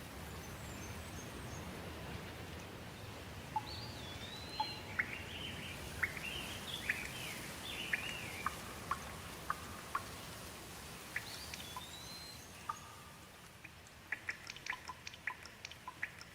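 Steady rain with a bird calling in short whistled phrases that rise and fall, through the middle. Near the end the rain thins and single water drips take over.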